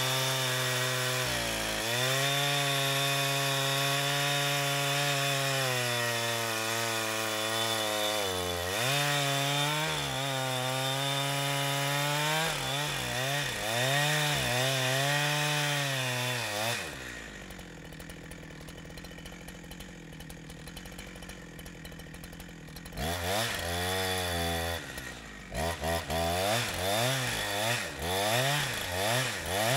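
Holzfforma G372xp two-stroke chainsaw with a 28-inch bar running at high revs under load, as in a lengthwise ripping cut through a log. Its pitch holds steady, then wavers up and down. About 17 seconds in it drops to a much lower level, then is revved in short bursts near the end.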